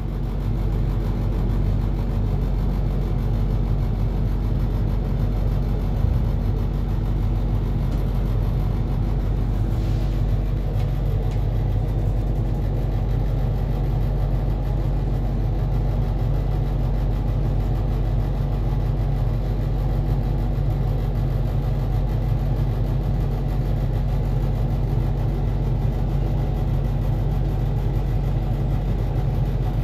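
Steady low mechanical hum inside an enclosed Ferris wheel gondola, with a few low tones that hold unchanged throughout.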